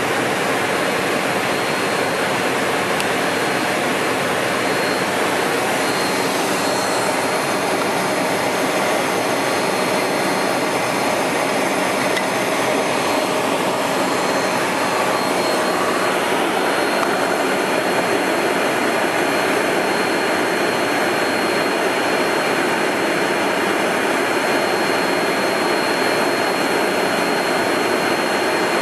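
Steady cockpit noise of an Embraer Phenom 100 in the climb: its two Pratt & Whitney PW617F turbofans and the rush of air over the airframe, with a thin steady high whine above it.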